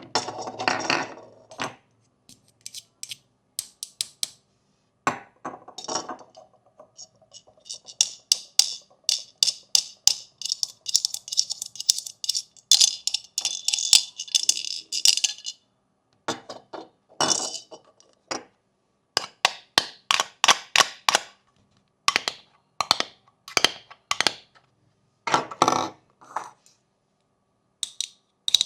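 Small hard fidget-toy pieces clicking, tapping and clinking in quick irregular runs, with several seconds of continuous rapid rattling in the middle.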